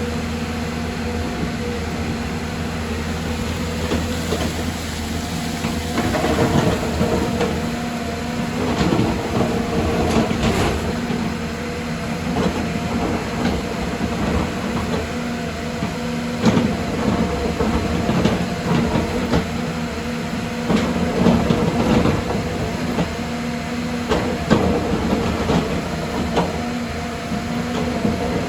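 Excavator's diesel engine running steadily, with irregular clanks and knocks from the machine working, several of them sharper than the rest.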